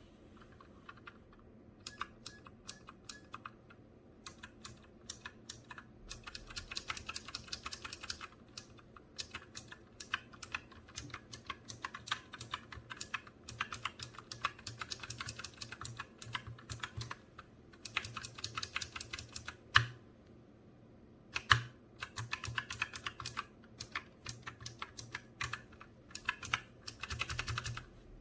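Typing on a Razer Huntsman Mini 60% keyboard with clicky optical switches: fast runs of sharp key clicks in bursts, with short pauses between and a couple of louder single clacks about two-thirds through.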